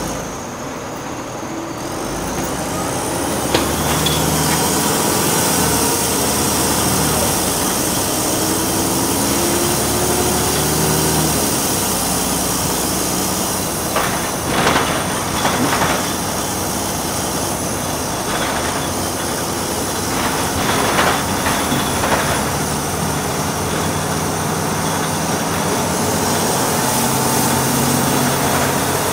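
Cabin noise of a Volvo B6BLE single-deck bus: the diesel engine and road noise build about two seconds in as the bus pulls away, and the engine note rises as it accelerates. A few short rattles and knocks come from the body around the middle.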